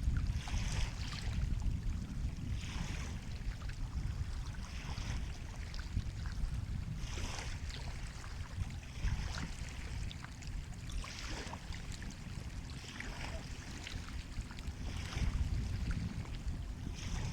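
Sea waves washing on a shore: a steady low rumble with hissing surges of water every couple of seconds.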